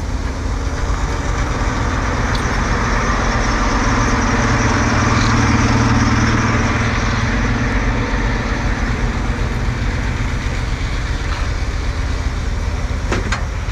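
Diesel engine of a car-hauler semi tractor idling steadily, a low hum that grows somewhat louder in the middle.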